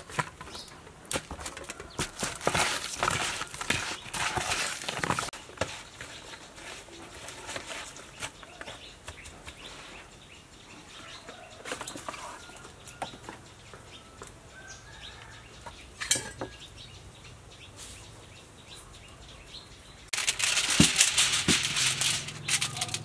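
Hands squishing and turning pieces of snakehead fish through a marinade in a plastic bowl, with quick wet crackles for the first several seconds. Near the end a sheet of aluminium foil is pulled from its roll and spread out, a loud crinkling rustle that is the loudest sound.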